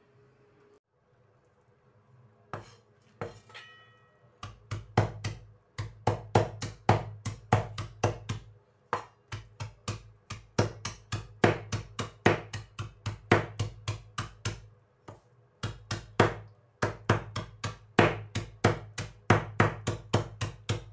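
Chinese cleaver chopping dried salted radish on a wooden cutting board, mincing it fine: fast, even knocks, about three a second, with a few short pauses, beginning a few seconds in after some scattered strikes.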